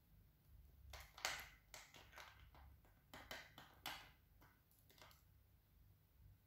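A quick run of small clicks and taps as a paintbrush works paint in the pans of a metal watercolour tin, scattered over about four seconds, with a faint hum underneath.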